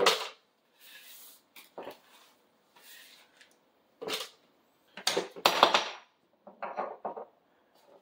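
Utensils knocking and scraping against a plastic bowl and a metal can mold as birdseed mix is scooped and packed: a string of separate knocks and scrapes, the loudest a clatter about five seconds in.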